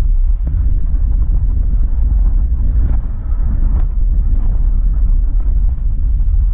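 Car driving on the road: a steady low rumble of engine and road noise, with some wind buffeting on the microphone.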